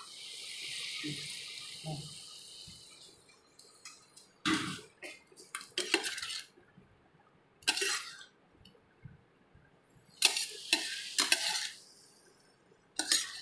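Chopped okra hits hot oil in a pan and sizzles for the first few seconds. Then a spatula scrapes and clinks against the pan in several separate strokes as the okra and tomatoes are stirred.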